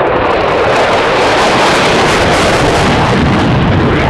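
Mirage 2000D's single SNECMA M53-P2 turbofan in afterburner on a fast pass: loud, dense jet noise with a crackle running through it.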